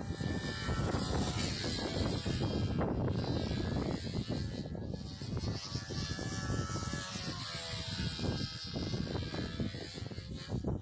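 Control-line stunt model airplane's engine running steadily while the plane circles and climbs overhead in a wingover, its pitch wavering slightly. Wind buffets the microphone with a low rumble.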